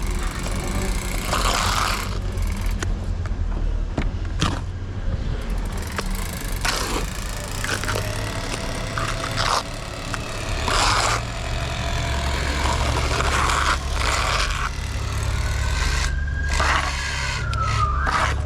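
Work noise on a building site: irregular knocks and scrapes over a steady low machine rumble that grows stronger about two thirds of the way in, with a faint tone that rises and falls near the end.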